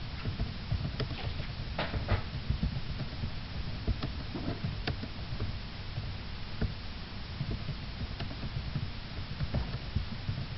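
Scattered, irregular light clicks and taps over a steady low hum.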